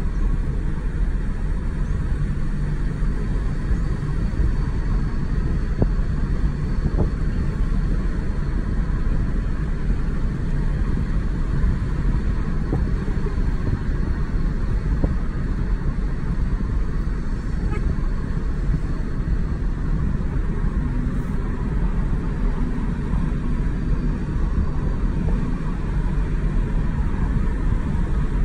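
Steady road and engine noise inside a Mazda car's cabin while cruising at an even speed, a low rumble with tyre hiss that does not change.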